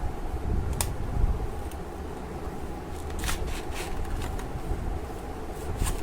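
A power bank's cardboard retail box being opened by hand: scattered sharp clicks and taps with scraping, rustling handling noise, over a steady low hum.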